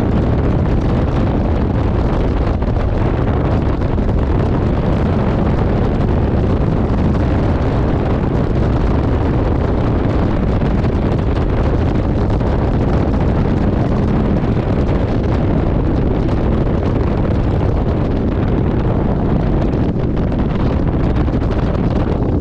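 Steady rush of wind buffeting the microphone of a bass boat running at around 60 to 70 mph, with the boat's motor and hull running underneath.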